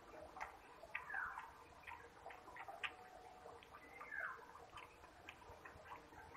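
Close-up eating sounds: moist chewing and lip smacks with scattered small clicks as fingers mix rice and dal on a steel plate. A short falling chirp sounds twice, about a second in and again about four seconds in.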